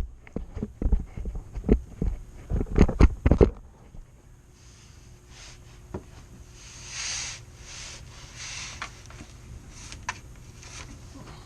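Uneven knocks and clunks of parts and tools being handled for about three and a half seconds, then quieter rustling with a few scattered clicks.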